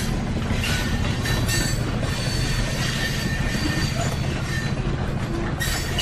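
Railway train running along the track: a steady low rumble and rushing noise with a few sharp knocks, and faint thin high-pitched squeal tones from the wheels.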